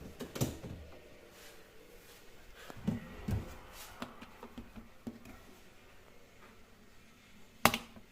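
Scattered knocks and clunks from handling a Gorenje dishwasher, probably its racks and door: two dull thumps about three seconds in and a sharp click near the end.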